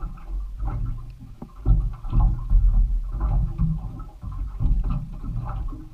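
Sea water slapping and sloshing against the hull of a small boat rocking on a chop, heard as irregular low thuds and rumble.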